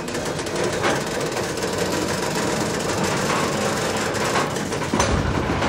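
Diesel switcher locomotive running under power as it approaches with its train: a steady mechanical clatter with a few sharp knocks, the low rumble growing stronger near the end.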